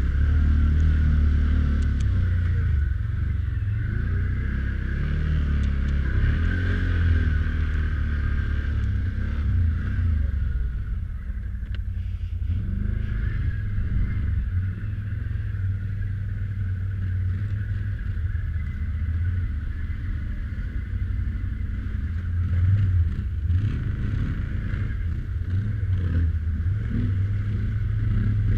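ATV engine running under load through a creek crossing, a steady low rumble whose pitch drifts up and down as the throttle changes.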